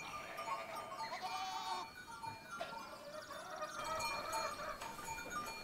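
Goats bleating, several wavering calls.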